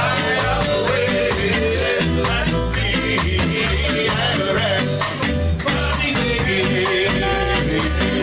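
A ska band playing live: saxophones and other horns over guitar, bass and drums, with a steady beat.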